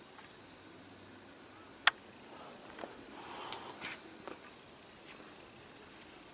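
Steady high-pitched buzzing of insects in outdoor vegetation, with a few soft footsteps on a trail and one sharp click about two seconds in.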